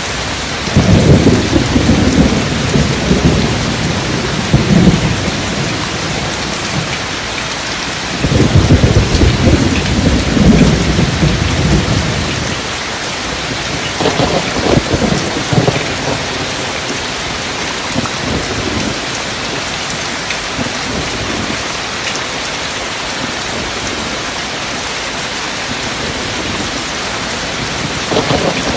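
Steady rain under three rolls of thunder. A long rumble starts about a second in, another comes around eight seconds in, and a shorter one comes near the middle.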